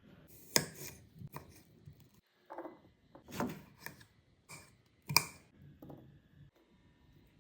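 Knife chopping vegetables on a cutting board: a scatter of irregular sharp knocks, the loudest about half a second in and again about five seconds in.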